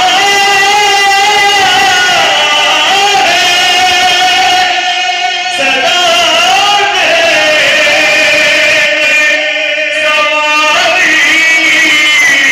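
A man chanting into a microphone over loudspeakers in long, drawn-out melodic phrases, his voice holding and bending each note, with brief breaths between phrases.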